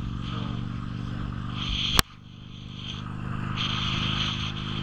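Motorcycle engine running steadily at cruising speed, with wind rushing past. A sharp click about halfway through, after which the sound drops away and builds back up.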